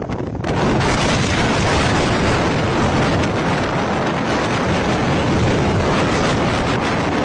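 Strong storm wind: a steady, loud rushing noise with a gusty low rumble from the wind hitting the microphone. It starts about half a second in.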